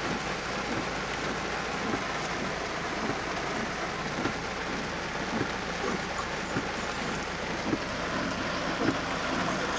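Heavy rain pelting a moving car's roof and windshield, heard from inside the cabin: a steady hiss with many irregular drop hits.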